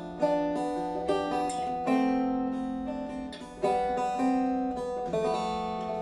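Long-necked fretted lute with tied frets, plucked with the fingers, playing a slow melody of ringing notes and chords. A strong pluck starts a new phrase about every one and a half to two seconds, and each one rings and fades.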